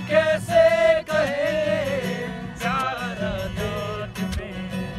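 Acoustic guitar playing while a man sings long, wavering held notes without clear words, the melody sliding down about two seconds in before he picks up a new phrase.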